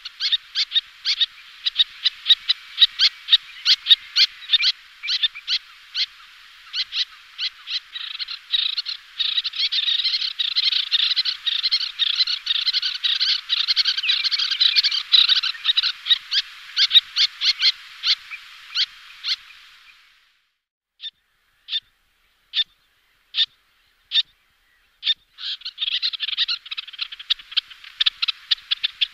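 Little terns calling: a rapid, overlapping series of short, sharp, high calls. About two-thirds of the way through, the calling thins to single calls spaced about a second apart for a few seconds, then the rapid calling resumes near the end.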